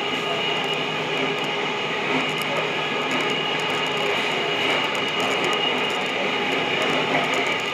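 Tokyo Metro Namboku Line subway train running steadily through its tunnel, heard from inside the car: a dense, even rumble of wheels and running gear with steady tones held throughout.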